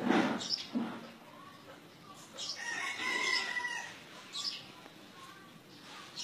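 A long, steady animal call about two and a half seconds in, held for about a second and a half, after a few short loud noises in the first second.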